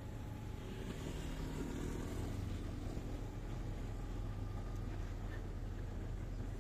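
Engine and road noise from a motorbike riding in traffic close beside a bus: a steady low hum, getting louder about a second in as more engine sound joins it.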